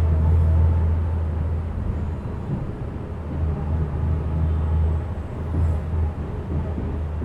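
Bus engine and road rumble heard from inside a moving bus: a steady low drone that swells and eases slightly with the ride.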